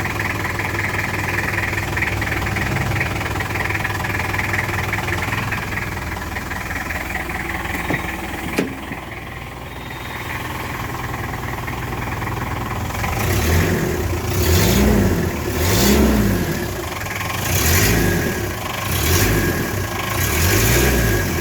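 Toyota Qualis engine idling steadily, then blipped through a series of short revs about one a second in the second half. This is its exhaust note with the silencer leak repaired. A single sharp click sounds midway through the idle.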